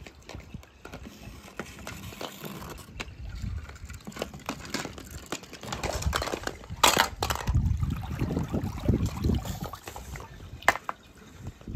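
Pool water sloshing and splashing as a pool skimmer net is swept through it and lifted out, with hollow plastic eggs knocking together in the net. A louder swish comes about seven seconds in, and a single sharp click near the end.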